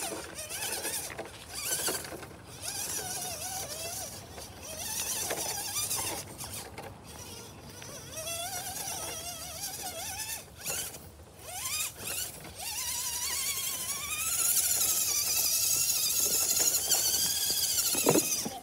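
Redcat Everest-10 RC rock crawler's electric motor and gears whining, the pitch rising and falling as the throttle is worked, with short knocks and scrabbling as the tyres climb over rocks and mulch. The whine is louder and steadier over the last few seconds.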